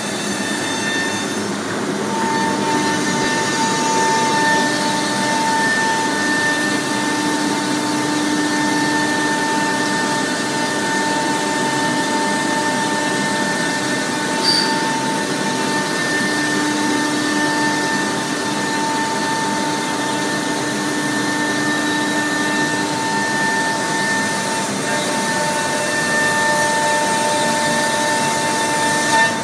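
SCM Busselato Jet Concept CNC router running, its routing spindle giving a steady high whine over a broad rushing noise. A short tick about halfway through.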